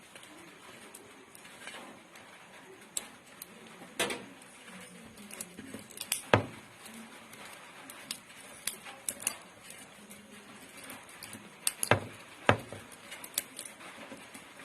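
Copper winding wire clicking and rustling as a coil is pressed by hand into the slots of a grinder motor's stator. There are irregular light taps and a few sharper clicks.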